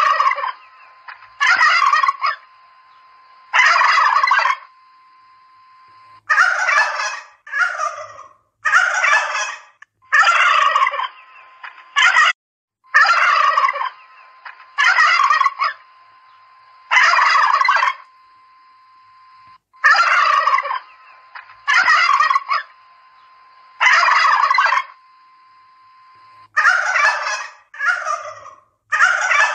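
Domestic turkeys gobbling: a loud rattling gobble about every one to two seconds, with a few calls coming closer together near the end.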